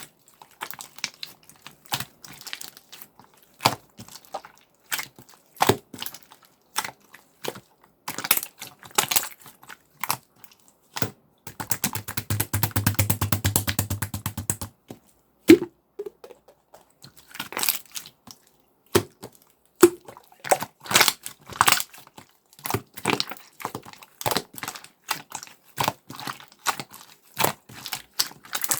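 Clear slime being squished and pressed by hand, giving irregular wet clicks and pops as air pockets burst. Around the middle comes a fast, even run of clicks lasting a few seconds.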